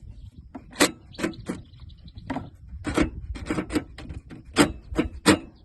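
Tool clicking and knocking against a riding mower's starter solenoid as its terminal nut is tightened: about ten sharp, irregularly spaced clicks.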